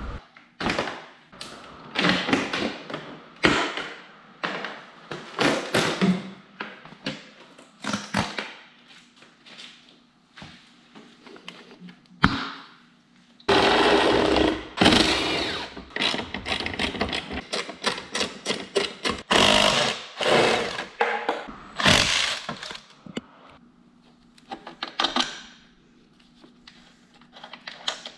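Workshop disassembly noise: irregular clicks, knocks and plastic rattles of hand tools, fasteners and motorcycle fairing panels as a sport bike is stripped down, with a few longer stretches of clattering and scraping.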